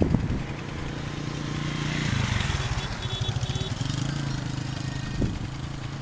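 A vehicle engine running steadily at idle nearby, with a few knocks at the start.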